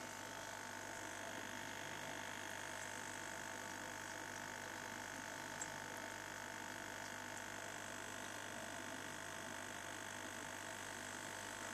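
Aquarium air pump running, a steady hum with a single small tick about five and a half seconds in.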